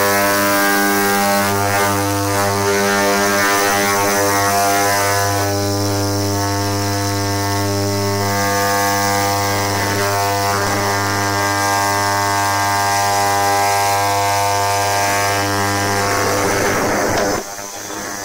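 Ultrasonic parts cleaner running, a loud, steady, horrible buzz that its operating frequency also puts into the recording as interference. Near the end it drops sharply in level as the lid goes on.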